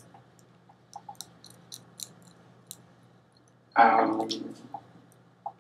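Scattered light clicks and taps of a pen on paper, with a brief loud hum from a person about four seconds in.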